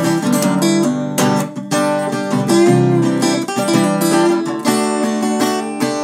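Background music: chords strummed on an acoustic guitar.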